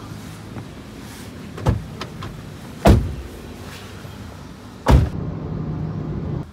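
Car ride heard from inside the cabin: a steady low rumble of engine and road noise, broken by three sharp knocks about one and a half, three and five seconds in.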